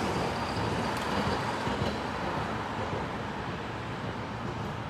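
Street traffic noise from a passing vehicle, an even rumble and hiss that slowly fades.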